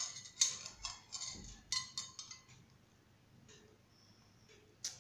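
A metal spoon clinking against a glass cup while scooping out ginger tea: about eight quick clinks over the first two seconds or so, then a single clink near the end.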